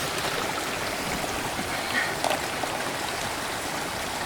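Steady rushing of a stream.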